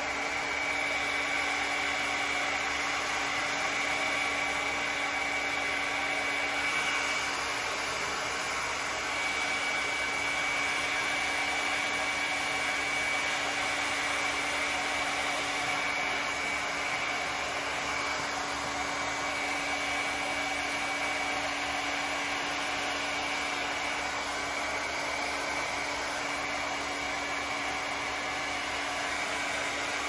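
Handheld hair dryer running continuously, a steady rush of blown air with a constant high whine from its fan motor.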